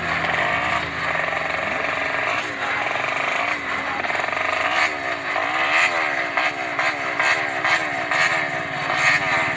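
Motorcycle engine being revved again and again, its pitch falling and rising about twice a second.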